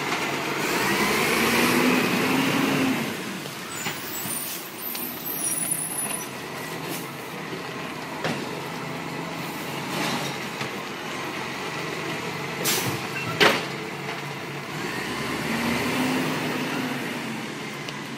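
Side-loading garbage truck running, its engine revving with a whine that rises and falls as the hydraulic lifting arm cycles, about a second in and again near the end. Two short sharp sounds come a little past the middle, the second one the loudest.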